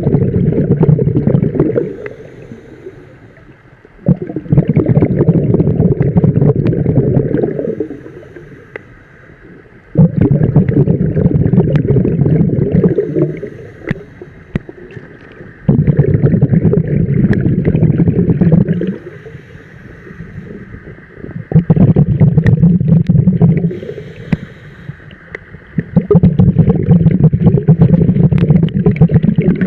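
Scuba diver breathing through a regulator underwater: a loud rush of exhaled bubbles about every five to six seconds, each lasting two to three seconds, with quieter gaps between the breaths.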